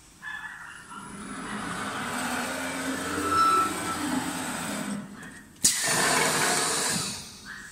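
Wood lathe cutting a spinning wooden furniture-leg blank: a hissing, rasping cut that builds over a few seconds and breaks off about five seconds in. It starts again abruptly a moment later.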